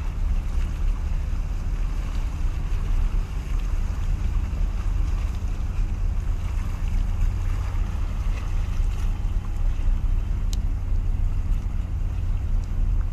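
Steady low rumble of wind buffeting the microphone over the wash of the sea against a concrete tetrapod breakwater.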